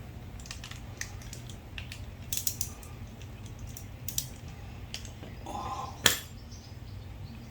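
Light metallic clicks and taps of tools and small engine parts being handled on a small generator's carburetor, with one sharper click about six seconds in. A low steady hum runs underneath.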